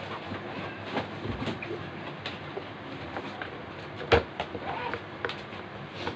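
Irregular knocks and clicks of hard plastic being handled inside a clear plastic box, with the loudest knock about four seconds in, over a steady background hiss.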